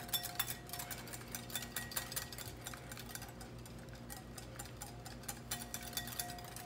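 Wire balloon whisk beating rapidly in a glass bowl, its wires ticking against the glass in a quick, steady run of light clicks as oil is whisked into egg yolk to emulsify it into mayonnaise.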